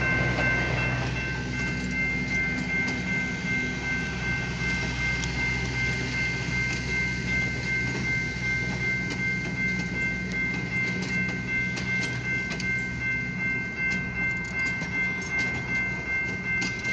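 Passenger train cars rolling past at low speed, the wheels clicking over rail joints in a regular rhythm of about two a second. A steady high-pitched ringing tone runs over the low rumble throughout.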